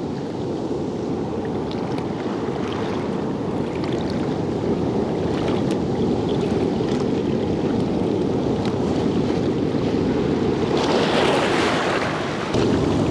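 Seawater surging and washing over the rocks at the tide line, a steady rush. Near the end a wave splashes up close and brighter, then briefly drops away.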